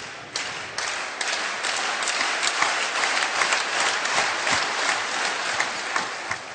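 Arena crowd applauding: many hands clapping together, swelling about half a second in and dying away near the end.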